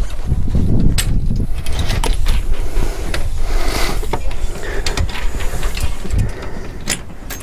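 The boat's gin pole being handled and stowed on the deck, giving scattered clicks and knocks, with a cluster of rattling clicks near the end as it is fitted into place. Under it runs a steady low rumble of wind on the microphone.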